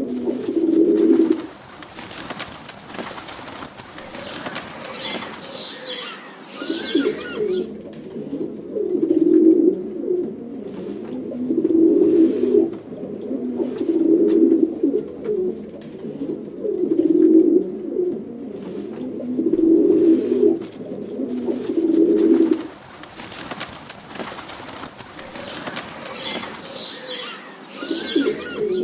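Pigeons cooing: low, repeated coos, one about every two seconds through the middle, with a gap before and after the run. Fainter higher scratchy sounds come before the run and again near the end.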